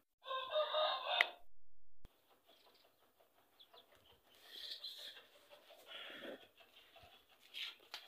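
A rooster crowing once, a call of a little over a second at the start, followed by faint scattered rustles and ticks.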